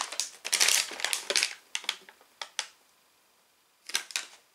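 Brown paper Lego parts bags crinkling and rustling as they are handled, in irregular bursts with a short pause before a last rustle near the end.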